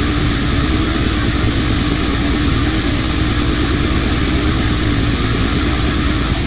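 Brutal death metal: a dense, loud, unbroken wall of heavily distorted guitar over rapid, even drumming.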